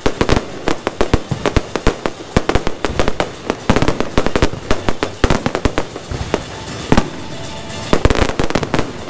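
Aerial fireworks going off in a rapid, dense barrage of bangs and crackles, with a few louder booms among them.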